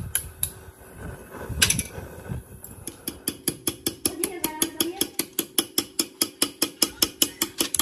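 Metal mechanism clicking in an even run of sharp clicks, about five a second, starting about three seconds in after a few scattered knocks.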